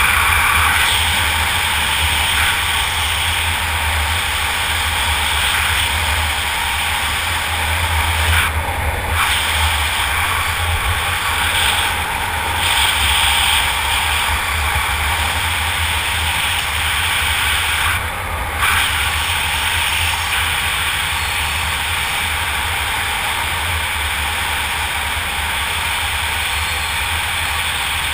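Steady wind rushing over the camera's microphone during parachute canopy flight, dipping briefly a few times.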